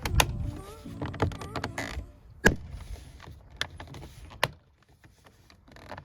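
Plastic trim covers being pressed onto a car's interior door handle: some handling rattle, then a few sharp clicks as the cover clips snap into place, the loudest about halfway through.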